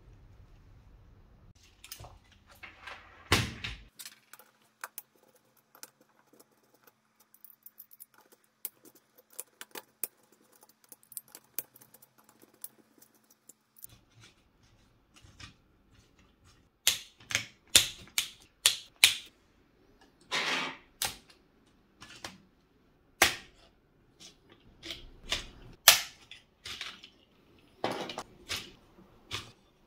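Irregular clicks and knocks of plastic modular circuit breakers and a screwdriver being handled while a breaker panel is assembled on a tabletop. The clicks are sparse and faint through the first half, with louder, sharper knocks more often in the second half.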